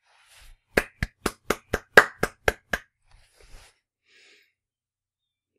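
A run of nine sharp, evenly spaced knocks, about four a second, the sixth the loudest, stopping about three seconds in.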